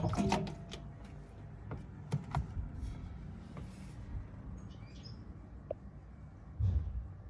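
Whirlpool washing machine running with a steady low hum while a 6-litre water bottle knocks around inside the drum. Sharp clicks and knocks come at the start and about two seconds in, and a heavy thump comes near the end.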